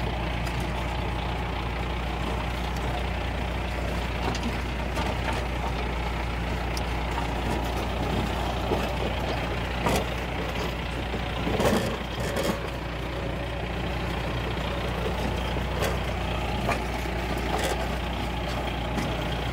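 Tractor engine running steadily while pulling an old potato planter, with the planter's mechanism clattering over the top. A few sharp knocks stand out near the middle.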